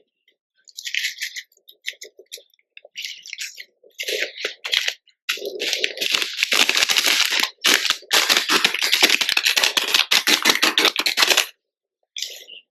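Blue chalk with pink glitter being crushed and crumbled. It starts as scattered crackles, then turns into about six seconds of dense, continuous crunching from about five seconds in, and stops abruptly near the end.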